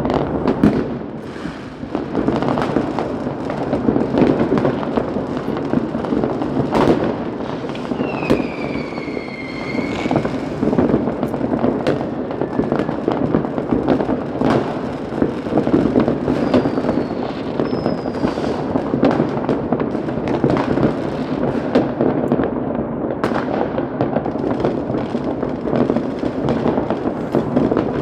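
Fireworks going off in dense, continuous succession: many overlapping bangs and crackles, with a falling whistle about eight seconds in and short whistles later on.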